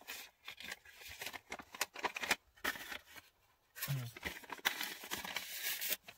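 Paper and packaging being handled and unwrapped close to the microphone: a run of short crackles and rustles, then a denser stretch of crinkling about four seconds in.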